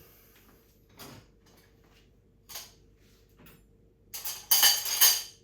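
Washing up by hand at a sink: a few light clinks of dishes, then a louder clatter of crockery and cutlery about four seconds in. A faint steady hum sits underneath.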